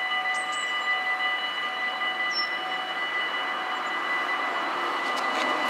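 Automatic level-crossing warning bells ringing continuously, several bells sounding together as the half-barriers lower. A broad rushing noise swells near the end.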